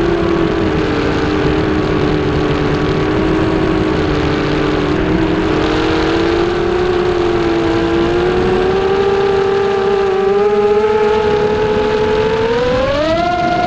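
ZMR250 racing quadcopter's four brushless motors and propellers whining in flight, the pitch wavering with throttle and then rising sharply near the end as the throttle is opened.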